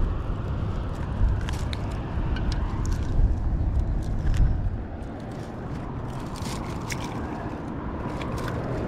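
Steady low rumble of road traffic on the causeway, with scattered light clicks and scrapes from handling a wire fish trap pulled up on a rope.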